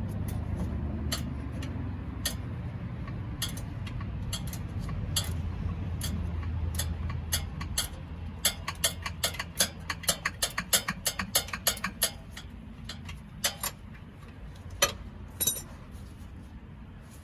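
Sharp metallic clicks and ticks from hand-tool work, scattered at first, then a quick run of about five a second for several seconds, over a low rumble that fades away.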